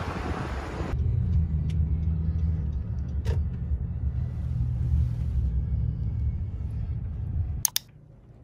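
Steady low road rumble heard inside a moving car, after about a second of wind noise on the microphone. Near the end two sharp clicks come and the rumble stops abruptly, leaving a quiet room.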